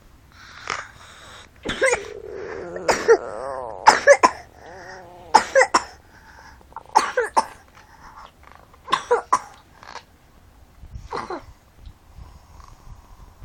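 A person snoring loudly in short harsh snorts every second or two, often in quick pairs.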